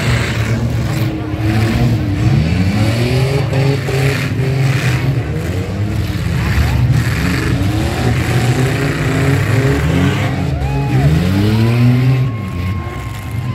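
Several demolition-derby pickup truck engines revving up and down at once over a low rumble, with scattered bangs of metal as the trucks hit each other.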